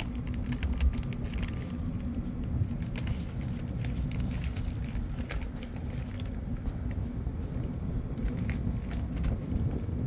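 Ship's machinery running with a steady low hum and rumble, with scattered light clicks over it.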